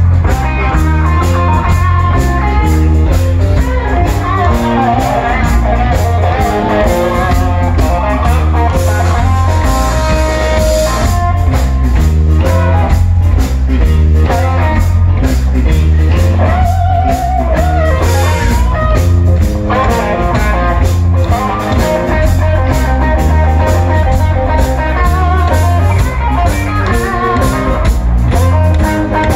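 Live blues-rock band playing an instrumental passage: electric guitars, bass guitar and drum kit, with a lead guitar line that bends notes and holds a wavering vibrato note about two-thirds of the way through.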